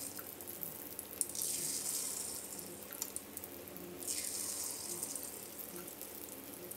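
Egg-batter fritters deep-frying in hot oil in a wok, a steady sizzle that swells sharply about a second in and again about four seconds in as fresh spoonfuls of batter are dropped into the oil. A few light clicks.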